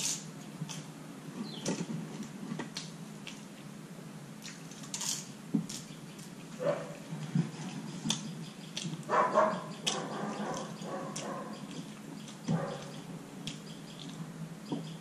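Close-up eating sounds: chewing and wet lip smacks as rice and curry are mixed and eaten by hand, with small clicks throughout. A dog whines briefly about nine seconds in, the loudest sound.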